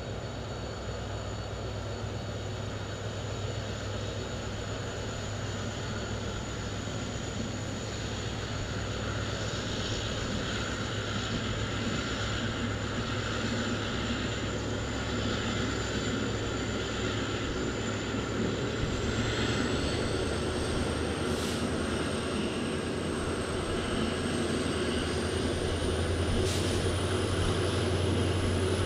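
Passenger train pulling out of a station behind an EMD WDP4D diesel locomotive, heard from an ICF coach. The running noise grows steadily louder as the train picks up speed, over a low steady hum. A high thin whine climbs in pitch about two-thirds of the way through, and there are two brief clicks near the end.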